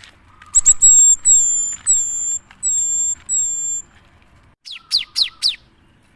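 Gelatik batu (cinereous tit) singing: a run of about seven clear, high whistled notes, then four quick falling notes near the end.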